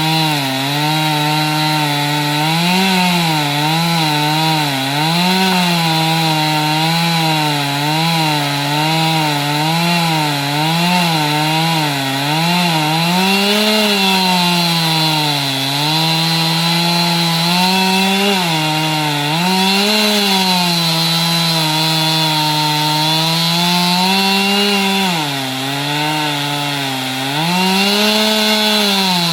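Chainsaw cutting wood, its engine pitch dipping and recovering again and again as the load comes and goes.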